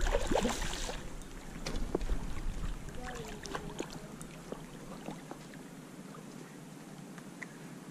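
Shallow lake water splashing and sloshing as a hooked brown trout is played in. The splashing is loudest in the first second, then dies down to faint scattered splashes and ticks.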